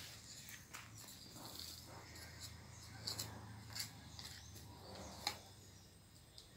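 Faint scattered clicks and rustles of soil and leaves being handled as a sapling is planted and earth pressed around it by hand, over a low steady hum.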